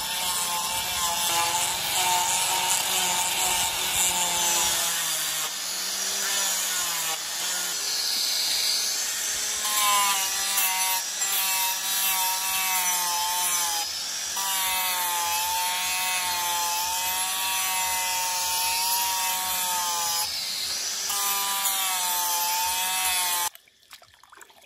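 Electric angle grinder with a sanding disc running against a wooden knife handle, its motor whine wavering up and down in pitch as it is pressed on and eased off. It stops abruptly near the end.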